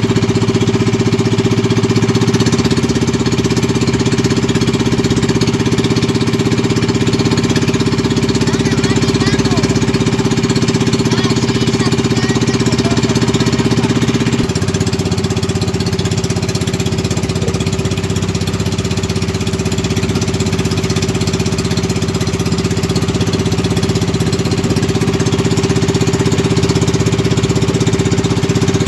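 Fishing boat's engine running steadily under way; its note shifts slightly about halfway through.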